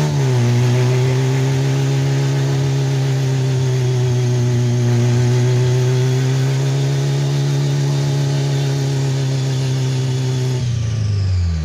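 Fiat Uno's engine held at steady high revs while its front tyres spin in place in a burnout, with a hiss of tyre noise; the revs drop about a second before the end.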